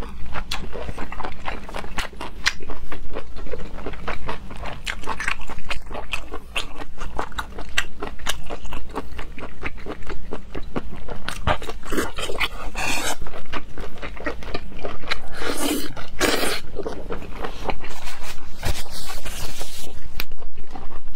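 Close-miked wet chewing and mouth clicks of a person eating whole octopus in a sticky spicy sauce. Three longer hissing sounds come a little past the middle and near the end.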